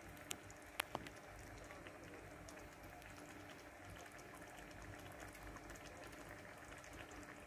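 A panful of prawns, sausages and potatoes in sauce simmering, with faint steady bubbling and crackling as the liquid reduces. Three sharp clicks come within the first second.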